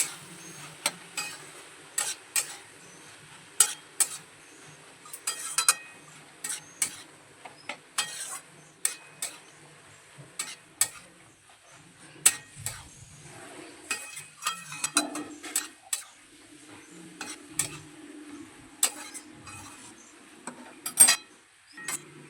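A spatula stirring a thick banana-flower and coconut curry in a pan, knocking and scraping against the pan in irregular clinks, over a faint sizzle.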